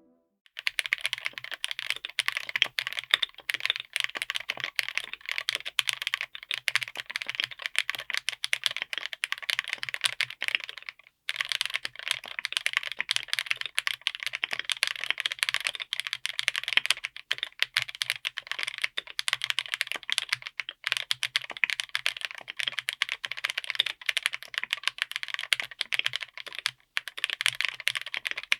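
Mechanical keyboard with BerserKeys Wolf Warrior linear switches, all-POM, on an FR4 plate, being typed on fast and continuously: a dense run of keystroke clacks. A brief break about eleven seconds in.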